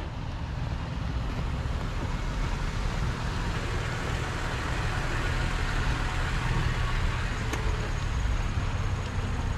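A motor vehicle running: a steady low rumble with an even hiss over it.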